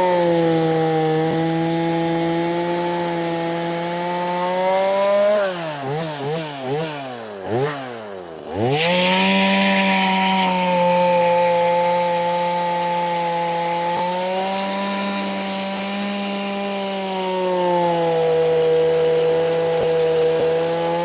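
Two-stroke chainsaw with a carving bar, run under test to check that the bar now oils the chain and stays cool. It runs at high revs, drops and picks up several times about six seconds in, falls to near idle, then revs back up and holds steady.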